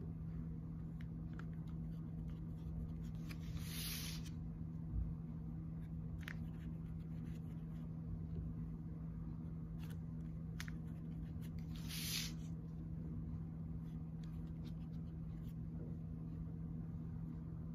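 Hands handling modelling clay: two brief scraping rustles, about four seconds in and again near twelve seconds, and a few light clicks as clay pieces are picked up and pressed on, over a steady low room hum.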